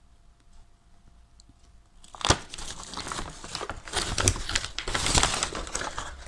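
Paper takeaway bag crinkling and rustling as hands dig into it and lift it. It starts about two seconds in with a sharp crackle and then goes on without a break.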